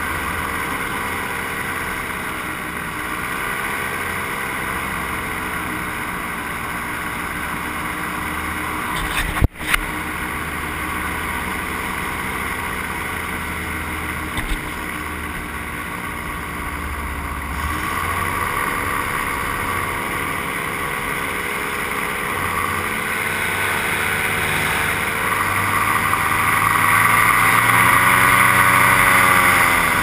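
Motor of a low-flying aircraft running steadily, its pitch dipping and rising a few times, with wind hiss on top. A sharp crackle about nine seconds in, and the motor gets louder near the end.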